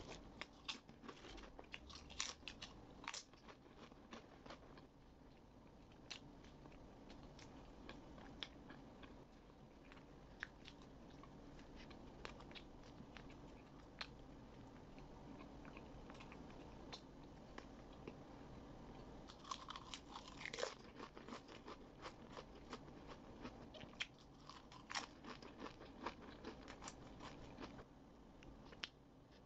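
Potato chips crunched between the teeth: sharp, crackly crunches in clusters, with a dense flurry about twenty seconds in and another a few seconds later, and quieter chewing between them.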